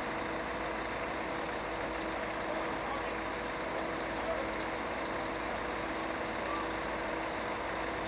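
A mobile crane's diesel engine running steadily under load while it hoists a railcar's engine, a constant drone with an unchanging hum.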